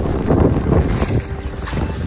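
A boat running across choppy open water, its hull slapping through the waves with spray splashing, and heavy wind buffeting the microphone.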